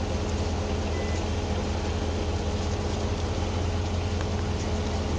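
A vehicle engine idling steadily: a constant low hum with a thin, unchanging whine above it.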